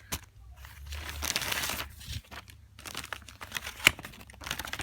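Packaging being handled and crinkled while stickers and papers are sorted out of a box, with scattered small clicks and one sharper snap about four seconds in.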